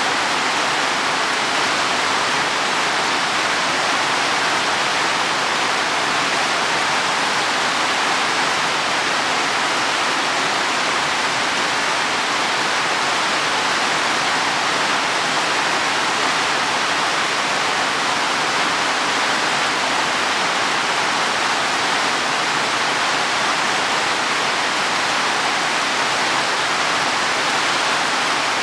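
Heavy rain falling steadily on leaves and soil, an even hiss with no single drops standing out.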